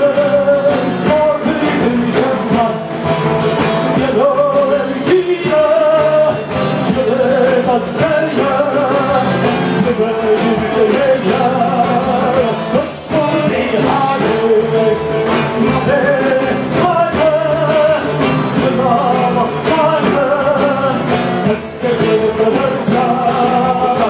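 A male singer singing a melody live into a microphone through a PA, with frame drums and an amplified band playing along.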